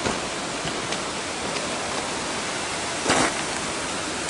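Waterfall cascade rushing steadily, an even spray of falling water. There is a brief louder noise about three seconds in.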